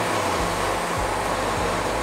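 Wood-Mizer LT40 Wide band sawmill running, a steady whirring noise of engine and band blade as it saws slabs from a monkey pod log. Background music plays underneath.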